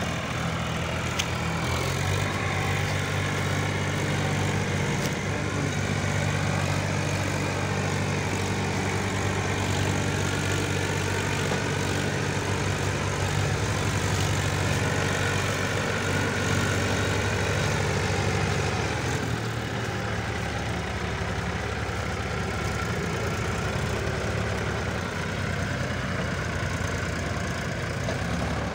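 Tractor diesel engines, including a Mahindra 265 DI's three-cylinder diesel, running hard under load while one tractor pulls the other out of deep mud. The engine note rises about two seconds in and eases slightly around twenty seconds in.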